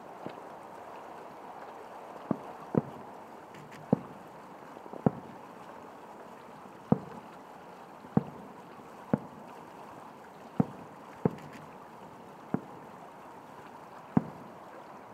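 Aerial firework shells bursting: about a dozen sharp bangs at uneven intervals, one to two seconds apart, over a steady hiss.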